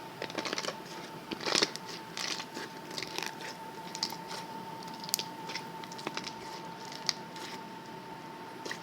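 Slime being squeezed and poked by hand, giving irregular crackling clicks and pops, the loudest about a second and a half in, over a faint steady hum.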